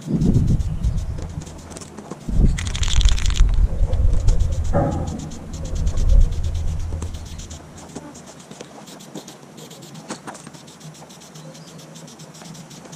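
Gusts of wind buffeting the microphone, loudest in the first seven seconds, with a short hiss of an aerosol spray-paint can about three seconds in.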